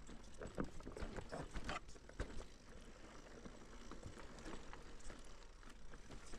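Mountain bike clattering over a rough trail: irregular knocks and rattles, several sharper ones in the first couple of seconds.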